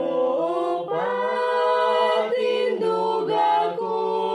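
Young voices singing a Cebuano hymn without accompaniment, holding long, drawn-out notes.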